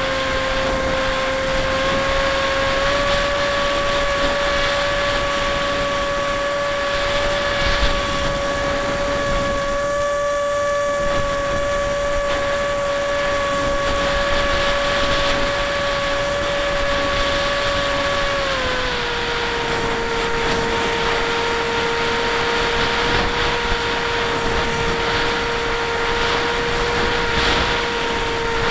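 Bixler 1 RC plane's electric motor and propeller whining at a steady pitch, stepping up slightly a few seconds in and dropping lower about two-thirds of the way through, over a steady rush of wind on the onboard camera.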